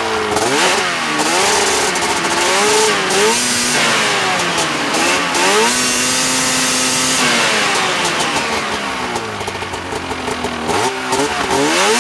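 Arctic Cat F7 snowmobile's 700cc two-stroke twin being revved hard from idle, the pitch rising and falling as the throttle is opened and eased several times. It is held high for about a second around the middle, then sinks back toward idle before another quick rise near the end.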